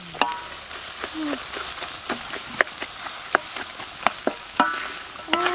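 Shrimp and scrambled duck egg sizzling in a hot wok while a spatula stirs them, its edge clicking and scraping against the metal pan about six times.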